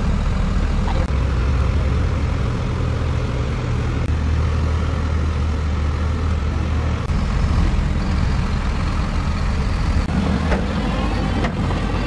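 Shantui crawler bulldozer's diesel engine running steadily under load as the dozer pushes a pile of dirt with its blade.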